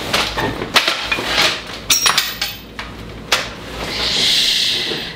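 Metal clanks and knocks of someone climbing down a steel wall ladder and dropping off it, about half a dozen separate knocks, followed by a longer rustle near the end.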